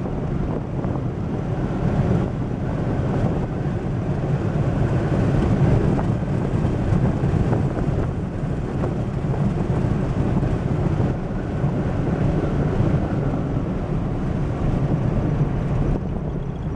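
Steady rumble of a car driving fast downhill, with road and wind noise buffeting the microphone.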